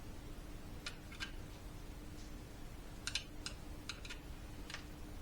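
Small sharp clicks and ticks of a climate control unit's plastic housing and parts being handled and fitted back together, about eight at irregular spacing, most of them bunched after the middle.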